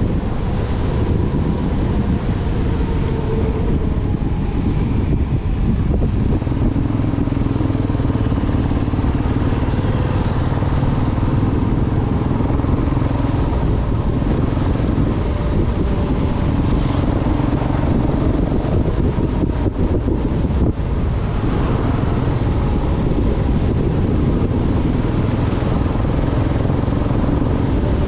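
Motorcycle engine running as the bike is ridden along at road speed, its note drifting slightly with the throttle, over a steady rumble of wind and road noise.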